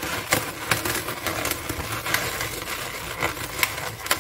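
Inflated latex twisting balloons rubbing and squeaking against each other and against the hands as they are pressed down and wound together, in short irregular squeaks.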